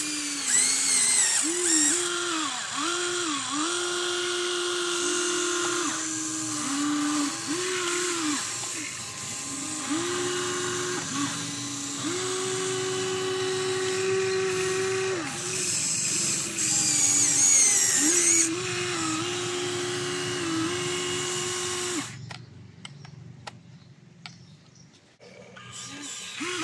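Huina RC excavator's small electric motors whining as it swings and works its boom, arm and bucket. Each run starts with a rising whine, holds a steady pitch for a second or more, then stops, with short gaps between moves. It falls much quieter for a few seconds near the end.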